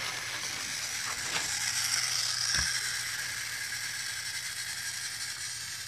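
Boe-Bot robot's two continuous-rotation hobby servos running steadily as it drives across carpet: a whirring gear whine with a low hum and a couple of faint clicks. It cuts off suddenly at the end.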